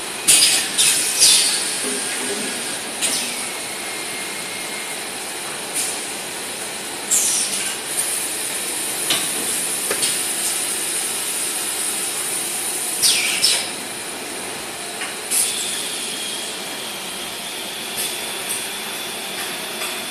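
Plastic bottle production machinery running: a steady high hiss with sharp, loud bursts every few seconds, two of them trailing off in falling whistles.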